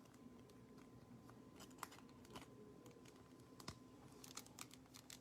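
Faint, scattered plastic clicks and light scraping as a sleeved baseball card is worked into a rigid plastic top loader. The extra-thick sleeve is too big to slide in.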